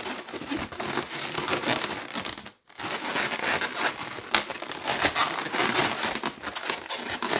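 Latex modelling balloons rubbing against each other and against the hands as they are twisted and wrapped into loops. The rubbing breaks off briefly about two and a half seconds in.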